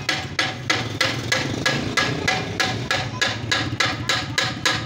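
A hand hammer striking metal repeatedly at an earthing bore, about three even blows a second, each with a short ringing note.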